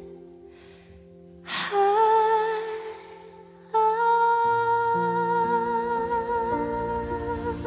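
A male singer's wordless vocal line with vibrato: a short sung phrase about a second and a half in, then a long held note from just before the middle. Soft low accompaniment notes come in under the held note.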